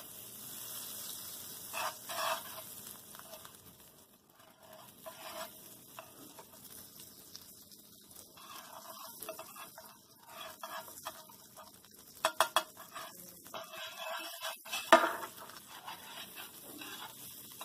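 Butter sizzling as it melts in a hot frying pan while a utensil pushes it around, scraping the pan. A few sharp taps come late on, and one louder knock of the utensil against the pan comes near the end.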